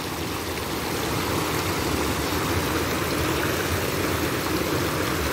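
Steady rushing of water pouring into a concrete fish pond, churning white at the inlets.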